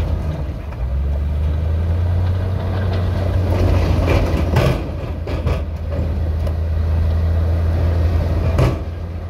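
Heavy diesel engine of earthmoving machinery running steadily with a deep rumble, with several knocks in the middle and one more near the end.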